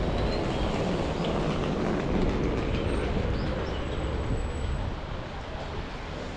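Low rumble of a passing vehicle, fading about five seconds in.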